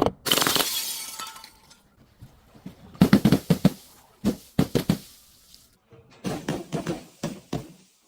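A glass bottle shattering right at the start, with the pieces ringing and tinkling for about a second and a half, then several rounds of short, sharp crunches as broken glass is crushed.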